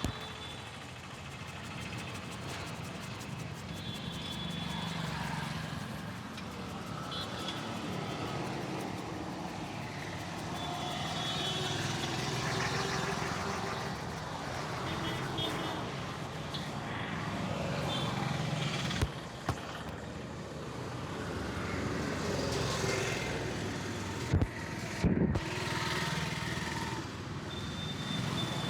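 Street background with road traffic running steadily. Three sharp smacks or cracks stand out above it, one past the middle and two close together near the end.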